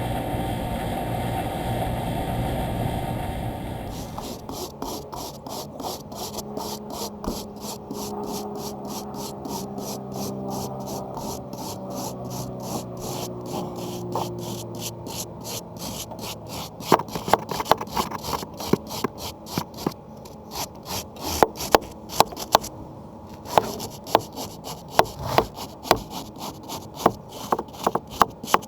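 A running blower's steady air noise for about four seconds, then after a sudden change, rhythmic scraping strokes about three a second. Sharper knocks join the strokes from a little past halfway.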